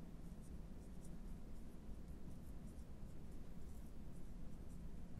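Marker writing on a lightboard's glass: a string of short, faint squeaky strokes, one after another, over a low room hum.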